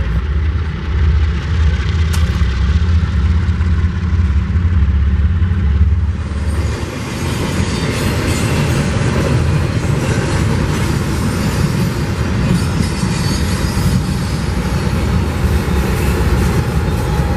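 Kansas City Southern diesel locomotive moving slowly with a deep, steady engine rumble. About seven seconds in, this gives way abruptly to the loud rolling noise of a double-stack freight train and its BNSF diesel locomotives passing close, wheels running on the rails.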